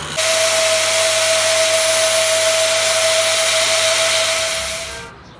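Handheld angle grinder running against a steel truck axle shaft turning in a lathe: a loud, steady grinding hiss over one steady motor whine. It starts abruptly and cuts off sharply about five seconds in.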